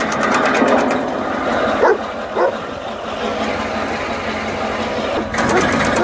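Tractor-powered branch cutter running, chopping branches into short firewood rounds with a rapid rhythmic clatter over the tractor's engine. A dog barks twice about two seconds in.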